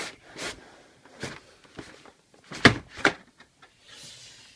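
Cardboard keyboard packaging being handled: a run of short scrapes and knocks, the loudest about two and a half seconds in, then a soft sliding rustle near the end.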